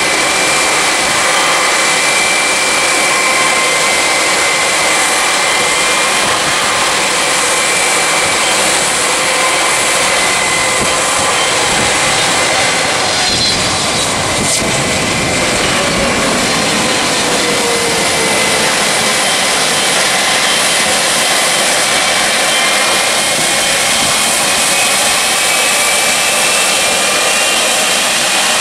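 Jet airliners on final approach, a twin-engine Boeing 777 passing low overhead: loud, steady jet engine noise with high whining tones, one of which falls in pitch a little after the middle as the aircraft passes.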